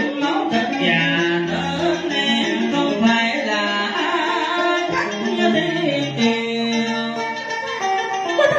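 Vietnamese cải lương (vọng cổ) performance: a singer's voice through a microphone over plucked-string accompaniment.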